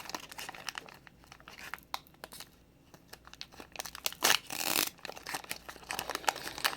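Foil wrapper of a Pokémon trading card booster pack crinkling as it is handled and the cards are worked out of it: a run of small crackles, with a louder, longer crinkle about two-thirds of the way through.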